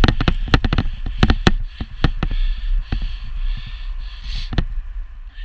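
Wind rumble and road noise on a cyclist's helmet camera while riding, with many irregular sharp knocks and clicks, dense for the first couple of seconds and then sparser.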